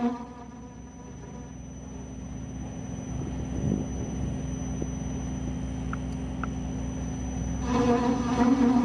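South Bend metal lathe running while a cutter is fed into an oiled steel workpiece, forming a button cutter's profile: a low steady rumble. About eight seconds in, a loud pitched buzz sets in, the chatter of the tool vibrating in the cut.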